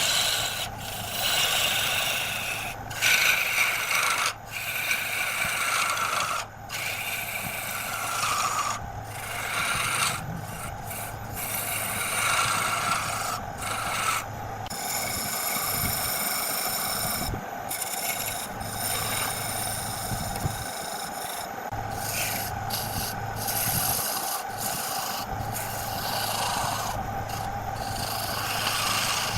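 Wood lathe running with a steady hum while a turning tool cuts the spinning wood, a rasping scrape that breaks off for a moment many times.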